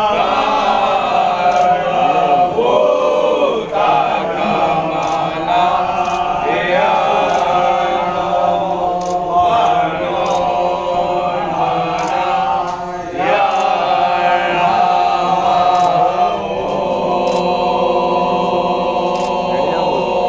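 Temple priests' voices chanting together during the Bhasma Aarti of Lord Shiva: long held tones that rise and fall, with sharp strikes about once a second.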